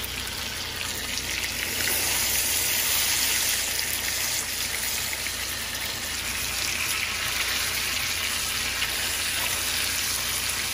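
Bone-in steak sizzling steadily in a hot skillet as it sears on its second side, a little louder from about two seconds in.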